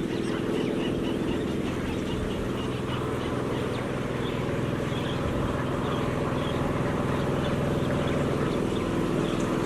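An engine running steadily at an even pace, with short high bird calls repeating over it.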